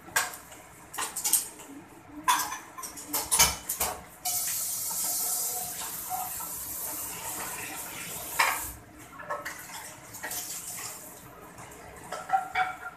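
Kitchen tap turned on about four seconds in, water running into a stainless-steel sink for about four seconds before it stops. Clinks and knocks of kitchenware being handled come before and after.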